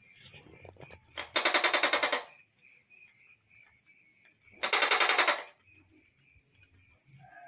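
Tokay gecko calling: two bursts of rapid pulses, each about a second long and about three seconds apart, over steady high-pitched background tones.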